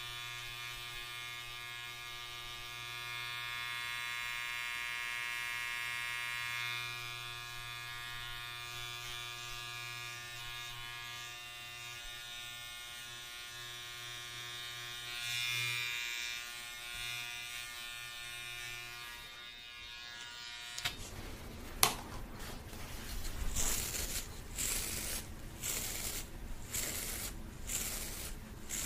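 Electric hair clipper buzzing steadily close to the microphone. About 21 seconds in it stops, a sharp click follows, and then comes a run of quick rubbing strokes near the microphone.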